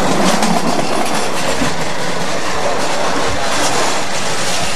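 Passenger-carrying miniature railway train running on its small-gauge ground-level track, its wheels clattering steadily on the rails.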